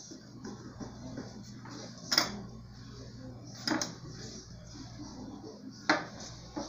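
Three sharp knocks from bread and a serrated bread knife being handled on a tabletop, the last as the knife is set down. Soft rustling of hot dog buns being cut and handled comes between the knocks.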